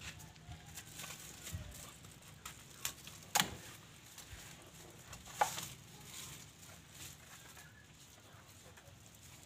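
Plastic wrapping rustling and crinkling as it is pulled off the sensors of a freshly washed car engine, with two sharp snaps, one about three and a half seconds in and one about five and a half seconds in. A chicken clucks in the background.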